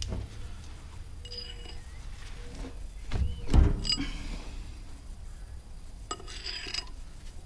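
Metal tools and parts clinking and ringing during hand work on the stump grinder's clutch, with a heavier knock about three and a half seconds in.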